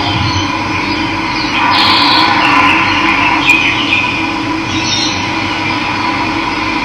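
Steady rushing of running water, with birds chirping over it, most clearly between about one and a half and three and a half seconds in.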